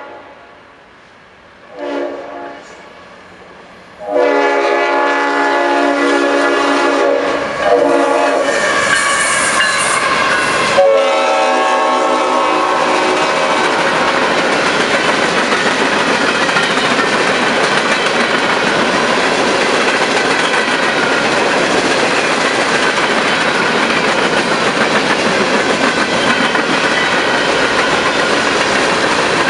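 Freight locomotive's horn sounding several blasts for a grade crossing: a short one, then two long ones. The horn gives way to the steady rumble and clickety-clack of a long string of open-top hopper cars rolling past.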